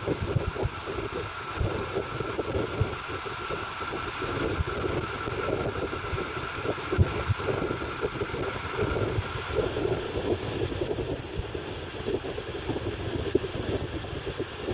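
Train rolling through a station: steady rumble with irregular knocks from the running gear, a faint steady high whine that fades out about ten seconds in, and wind on the microphone.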